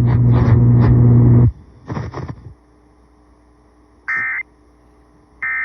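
Emergency Alert System end-of-message data bursts over FM radio: two short, identical buzzing bursts about 1.3 seconds apart, the coded signal that closes the alert. Before them a loud steady hum with broken sounds over it cuts off suddenly about a second and a half in.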